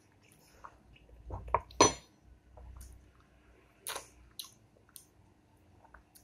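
Close-up eating sounds from soft ripe papaya and mango: wet mouth smacks, slurps and sucking as the flesh is spooned up and sucked off the peel. A few short clicks come about a second and a half in, with the loudest, sharp click just before two seconds in and another smack about four seconds in.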